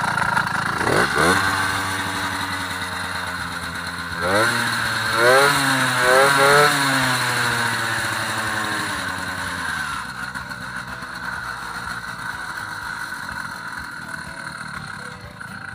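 Small gasoline engine of a home-built motorized bicycle running, revved by hand at the throttle: a quick rev about a second in, then a bigger rev with a few sharp throttle blips around four to seven seconds in, before it drops back to a steady idle. Its carburetor has not yet been tuned.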